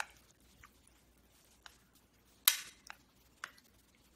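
Chopsticks clinking against a stainless steel bowl while stirring sliced pork: five scattered clicks, the loudest one about two and a half seconds in, ringing briefly.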